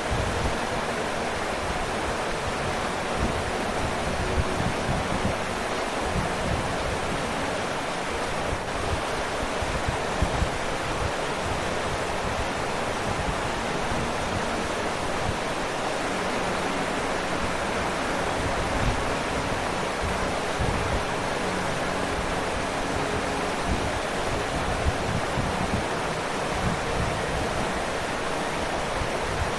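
Waterfall: steady rushing of falling water with a low churning rumble underneath.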